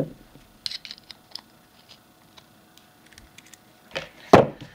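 Small clicks and scrapes of working the threaded fitting off the bottom of a wooden couch leg by hand, followed by one loud knock near the end.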